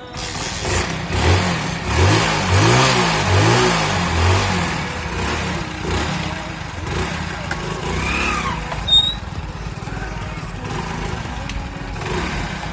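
Motorcycle engine running and revved in about four quick blips, the pitch rising and falling each time, then settling to a steadier run.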